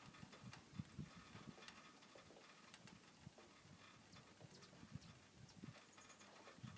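Near silence: a soft hiss with faint, irregular low knocks and taps scattered throughout.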